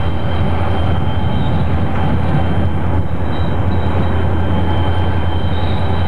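Rio Grande diesel locomotives, rear-end helper units, passing close by with a steady, loud low engine rumble and the running noise of the train. A faint high wheel squeal comes and goes.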